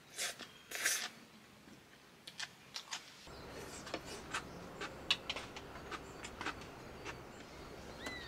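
Handling noise: two short rustles, then scattered light clicks and taps. A steady low background noise sets in about three seconds in, and a short chirp sounds near the end.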